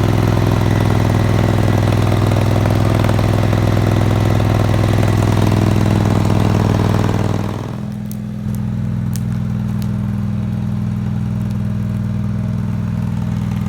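Yard-Man garden tractor engine running steadily and loudly. About seven and a half seconds in it drops back, dips briefly, then settles into a quieter, steadier run, with a few light clicks.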